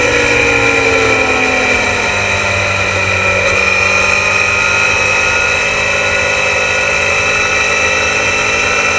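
Onboard sound of a Suzuki GSX-R750's inline-four racing engine with wind rush on the microphone. The engine note falls over the first couple of seconds, then holds nearly steady with a slow rise.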